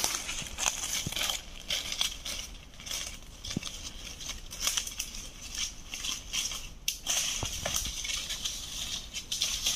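Footsteps crunching and rustling through dry leaf litter, an uneven run of crackling steps.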